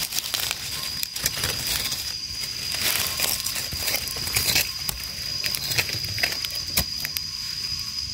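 Dry forest-floor leaves crackling and rustling under footsteps and hands working through the litter, in many irregular clicks. A steady high-pitched drone runs underneath throughout.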